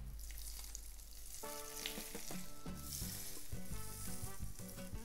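Hot oil and chicken drippings poured from a steel frying pan, sizzling as they hit raw sliced potatoes and onion in a steel bowl. The oil is still hot enough to fry the onion.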